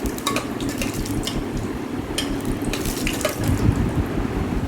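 Whole spices frying in hot mustard oil: a steady sizzle with irregular sharp crackles and pops.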